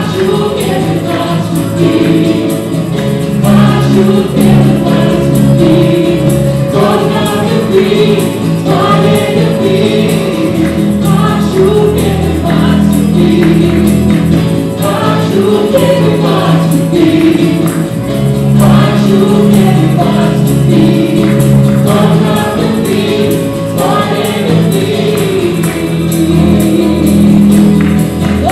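Live worship song: several voices singing together in unison and harmony over acoustic guitar, electric bass and keyboard, continuing without a break.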